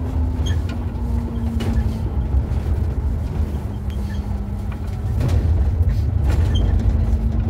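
Inside a city bus on the move: a low road-and-drive rumble with a steady hum and small rattles. About five seconds in it grows louder as the tyres run onto cobblestones.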